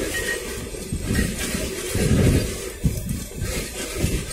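Freight train of railway tank cars rolling past: a steady rumble and hiss of steel wheels on rails, with uneven low surges that peak about two seconds in.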